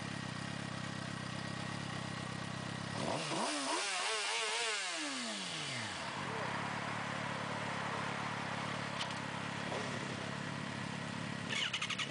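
Sport bike engine idling, with one throttle blip about three seconds in: the revs climb and then fall back to idle over about three seconds.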